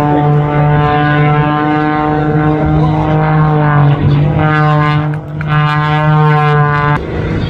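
Aerobatic propeller plane's piston engine droning, its pitch sliding up and down several times as the plane manoeuvres, with a brief drop in level about five seconds in.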